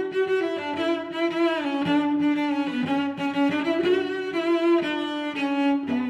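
Background music: bowed string instruments playing a slow melody in several voices, the notes held and changing step by step.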